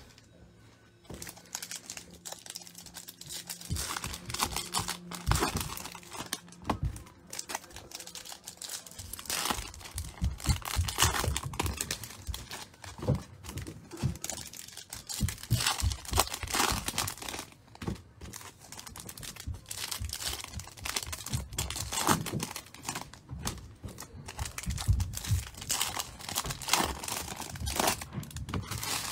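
Bowman Chrome trading-card pack wrappers crinkling and tearing as they are opened by hand. The cards inside are handled and shuffled. It is a run of irregular crackles that starts about a second in.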